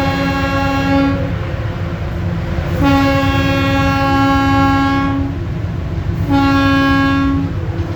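Locomotive horn sounding three blasts over the steady low rumble of the train. The first blast ends about a second in, followed by a long blast of about two and a half seconds and a shorter one of about a second near the end.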